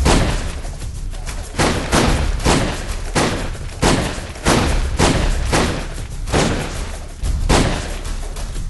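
A rapid string of pistol shots, more than a dozen at about two a second, each with a short echoing tail, over a steady deep rumble.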